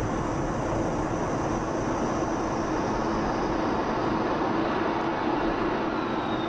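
Steady cockpit noise of a fighter jet in flight: an even rush of engine and airflow, with a steady hum underneath.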